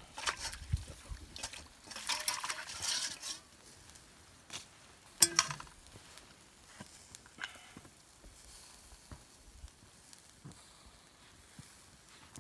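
Clicks and taps of things being handled around a small charcoal grill of vegetables, with a rushing, crackly noise lasting about a second from about two seconds in and one sharp click about five seconds in; after that only faint, sparse ticks.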